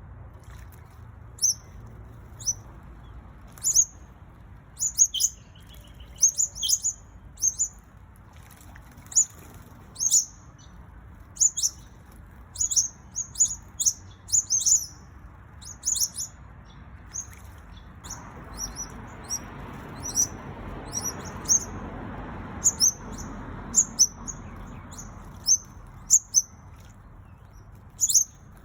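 Small birds giving short, sharp, high-pitched chirps, one to three a second, over a low background hiss that swells for a few seconds in the middle.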